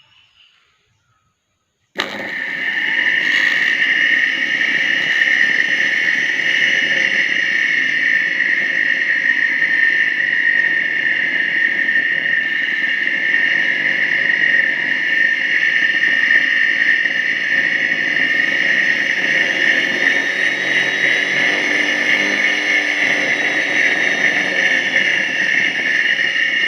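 Car's electric radiator cooling fan running steadily with a high whir, starting abruptly about two seconds in after a short silence.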